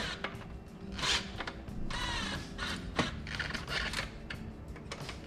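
Cordless drill-driver whirring in three short bursts as it drives small screws into a plastic stereo fitting kit, gently so as not to overtighten, with a few sharp clicks between bursts.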